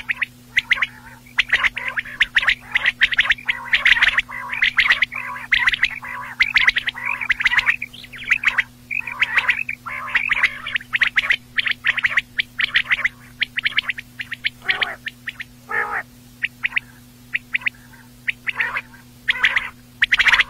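Quail calling over and over: quick clipped notes in rapid runs, dense through the first half and sparser toward the end, over a steady low hum.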